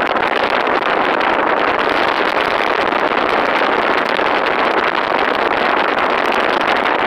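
Steady rushing road and wind noise of a moving vehicle, heard from on board as it drives along.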